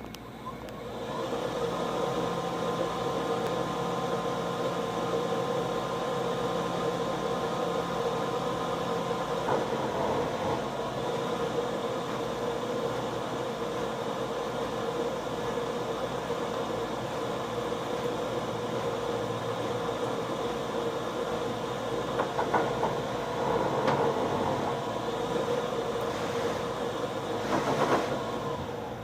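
HP vinyl printer rolling the vinyl back up, giving a steady mechanical drone with a held tone and a few higher tones over it, and a few clicks and rattles about ten seconds in and again near the end. This noise comes only when the printer reverses the vinyl, a sign of trouble in the media-feed drive.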